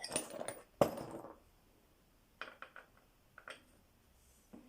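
Metal clinks and knocks as tools and BMX bike parts are handled while the seat post is being taken off. There is one sharp knock about a second in, then small groups of light clicks.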